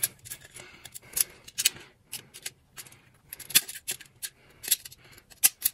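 Irregular small metallic clicks and scrapes of a screwdriver and a small hand tool working a tiny screw and nut on the chrome rim of a Marshal 889 headlight during assembly.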